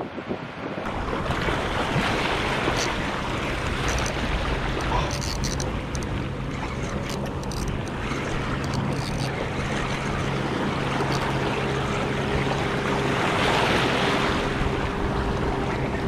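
Surf washing and breaking over jetty rocks, with wind buffeting the microphone. A steady low hum runs underneath.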